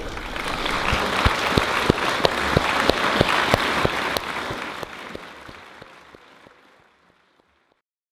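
Audience applauding after an orchestral piece ends, a dense wash of clapping that swells and then fades out to silence near the end.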